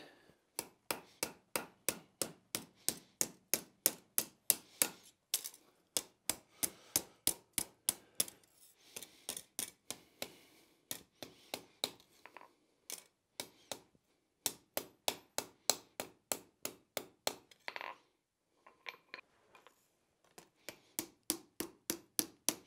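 Blacksmith's hand hammer striking a hot 1/8-inch steel hinge blank on an anvil, about two to three sharp blows a second in runs with short pauses, rolling the hinge's eye.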